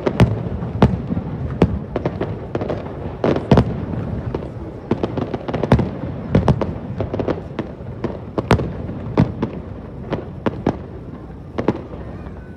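Fireworks bursting overhead: a rapid, irregular run of sharp bangs and cracks, several a second, over a continuous rumble of shells and echo.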